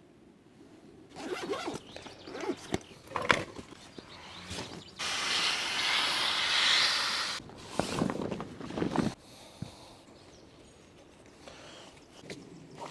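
Fabric pouch being handled on a camp cot: rustling and a few sharp clicks, then a zipper drawn in one long pull of about two seconds halfway through, then more rustling.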